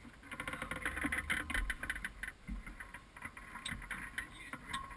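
Wind rumbling on an action camera's microphone, with a quick run of small clicks and rattles close by, thickest in the first couple of seconds.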